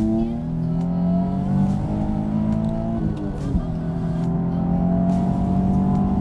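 A Nissan 350Z's V6 engine, heard from inside the cabin through a cat-back dual exhaust, pulling hard under acceleration. Its pitch rises steadily, drops briefly about three seconds in, then climbs again as the revs build toward 6,000 rpm.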